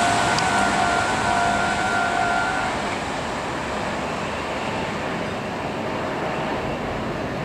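Electric train running past a level crossing, its rumble and rail noise fading as it moves away. A few steady tones sound over it and stop about three seconds in.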